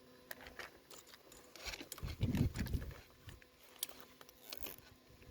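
Scattered light clicks and rustles of something being handled, with a brief low rumble about two seconds in.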